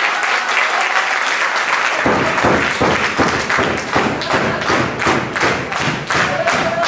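A small crowd applauding, then from about two seconds in clapping together in a steady beat of about three claps a second.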